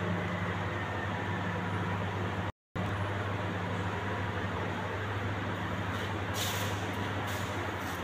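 Steady low machine hum over an even rushing noise, like a fan or motor running. The sound cuts out completely for a moment about two and a half seconds in, and short hissy bursts come in near the end.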